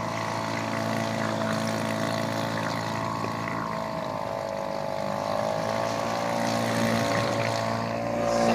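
Electric RC speedboat's brushless motor whining steadily as the boat runs across the water at speed, its pitch wavering briefly in the middle.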